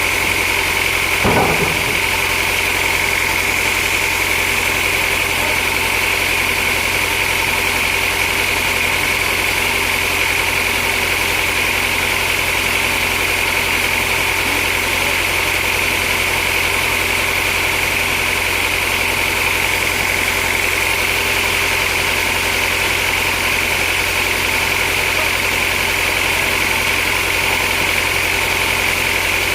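Sawmill machinery running steadily, with a constant high-pitched whine over a low hum; a short knock about a second in.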